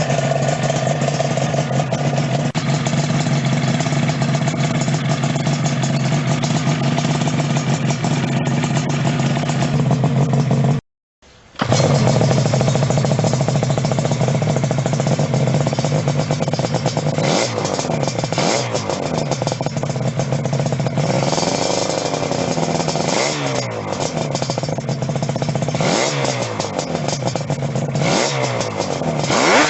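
Yamaha RD 350 two-stroke parallel-twin engine idling steadily, then revved over and over in blips that rise and fall in pitch, with a rising rev near the end. The sound cuts out for a moment about eleven seconds in.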